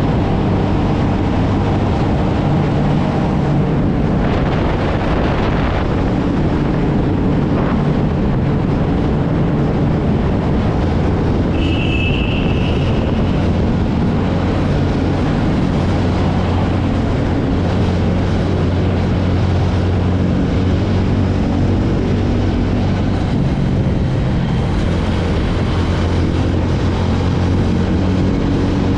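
TVS Ronin's single-cylinder engine and exhaust running steadily under way, with wind and road noise. A short high tone sounds about twelve seconds in.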